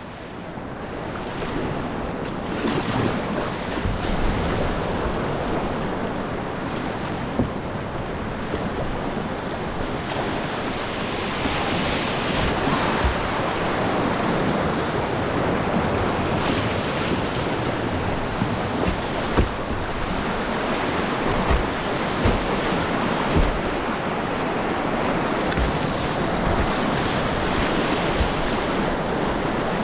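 Rushing whitewater of a swollen creek rapid: a loud, steady hiss and churn of water around the kayak, with occasional low thumps. It swells up over the first second or two.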